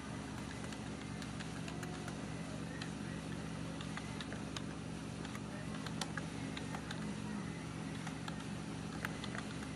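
Computer keyboard keys clicking irregularly, about one or two keystrokes a second, over a steady low hum.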